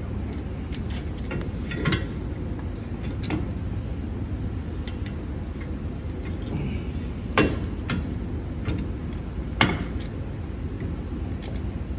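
Metal parts of a quick-change rear end clinking and knocking as they are fitted back on by hand, with a few sharper knocks, the strongest about two, three, seven and nine seconds in, over a steady low hum.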